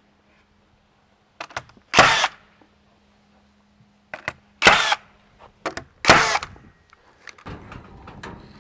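Metabo HPT cordless 21-degree framing nailer firing three times, a sharp shot each time with small clicks just before it, tacking round-head nails through OSB wall sheathing into the framing. A low steady rushing sound comes in near the end.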